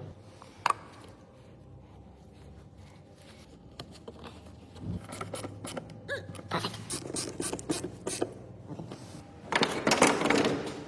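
Irregular mechanical clicking and scraping over a low steady hum. A single click comes early, then the clicks and scrapes grow busier from about halfway through and are loudest near the end.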